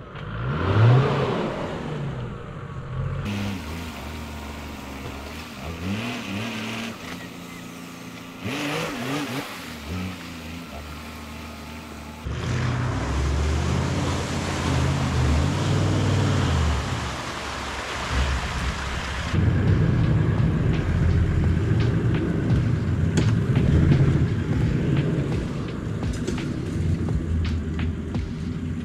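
Toyota LandCruiser 70-series 4WD engine revving up and down while driving through a boggy hole in the mud. The sound jumps abruptly about 3, 12 and 19 seconds in, and gets louder from about 12 seconds.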